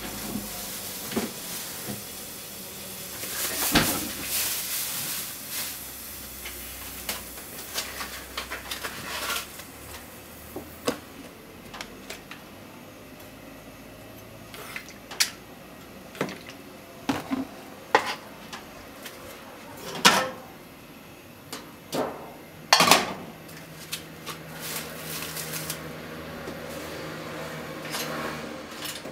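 Irregular clinks and knocks of kitchen handling around a nonstick frying pan on a gas stove grate: bottles, utensils and the pan being set down and moved. The loudest knocks come about two-thirds of the way through.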